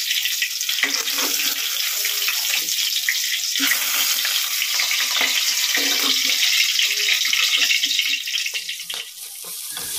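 Fish pieces frying in hot oil in a kadai, a steady sizzle, with a metal spatula scraping and tapping against the pan as the fried pieces are turned and lifted out. The sizzle dies down near the end.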